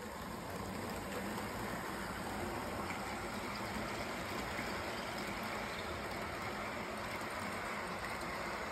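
HO scale model train running on the track: a steady rolling hiss and rumble of the wheels and motor, growing slightly louder.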